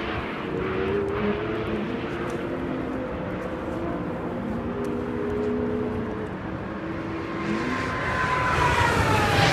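Race car engines running around the circuit, several engine notes overlapping with steps in pitch like gear changes. Near the end one car comes closer and grows louder, its note falling as it passes.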